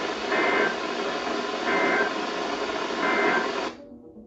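NOAA Weather Radio broadcast over heavy radio static, ending with the Emergency Alert System end-of-message code: three short, identical two-tone digital data bursts about 1.4 s apart. Near the end the static cuts off suddenly as the transmission drops.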